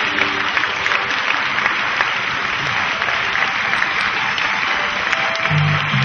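Audience applauding steadily. The last held musical notes fade in the first moment, and pitched music starts again near the end.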